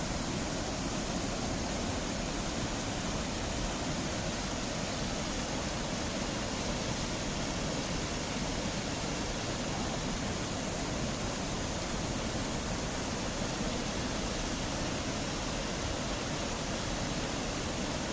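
River waterfall: water pouring over a rock ledge with a steady, unbroken rushing noise.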